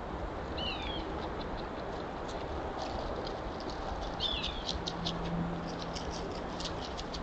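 Wild birds calling in the woods: a couple of short swooping notes, about half a second in and again after four seconds, and a scatter of quick high chips throughout, over a steady outdoor hiss. A faint low hum comes in during the second half.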